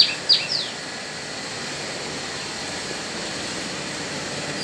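Baoli diesel forklift truck's engine running with a steady, even noise, heard close to its smoking exhaust pipe. A bird chirps a few times in the first half-second.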